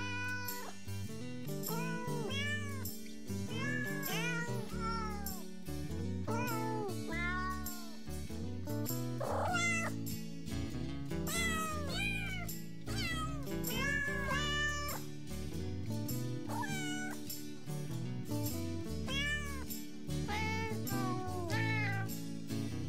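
Novelty "singing cats" music: a tune carried by cat meows, each meow one note rising and falling in pitch, over a backing track with a steady beat.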